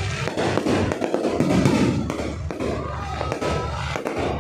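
Aerial fireworks exploding close by: a rapid, dense series of bangs and sharp cracks from the bursting shells.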